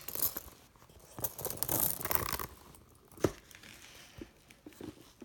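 Handling noise from a leather flap handbag being opened and moved about: two stretches of rustling, like crinkling tissue paper, then a single sharp knock a little past halfway, followed by a few faint ticks.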